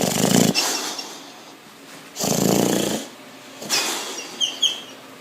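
A dog snoring: three long snores, the last with a couple of short high whistles near its end.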